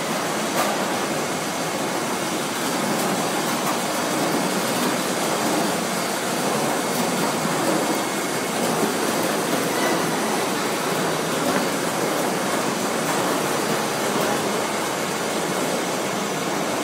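Steady machinery noise of a snack food production line running: a continuous even din with a few faint clicks.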